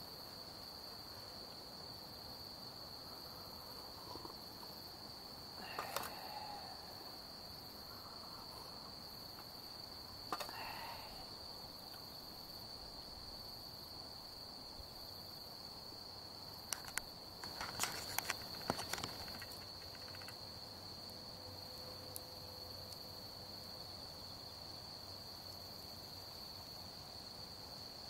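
Insects trilling in one steady, unbroken high tone, with a few scattered clicks and knocks, the loudest in a short cluster about two-thirds of the way through.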